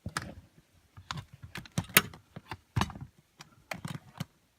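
Irregular hard plastic clicks and knocks as a car fuse box is worked up and out of its mounting slides, the loudest knocks about two and three seconds in.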